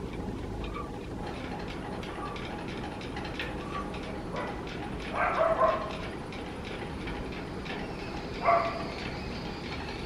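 Dog barking: a quick run of about three barks halfway through and a single bark near the end, over a steady low background rumble.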